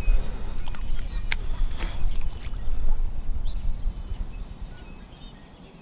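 Wind rumbling on the microphone, fading toward the end, with a few sharp clicks and faint high chirps.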